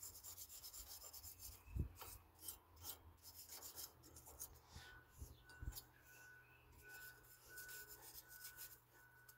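Faint rubbing and scraping of hand work on ATV front drum-brake parts, with a dull knock about two seconds in and another just past halfway. A faint, evenly pulsing high tone runs through the second half.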